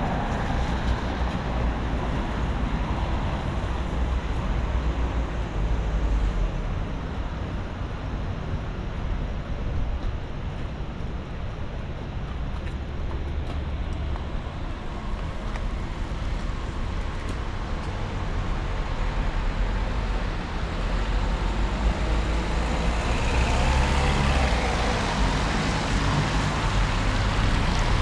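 Steady road traffic on wet city streets, a continuous rumble of passing vehicles that grows louder over the last few seconds.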